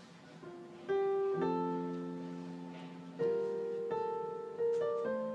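Soft background music: slow plucked-string notes and chords, each struck and left to ring out, a new one every second or so.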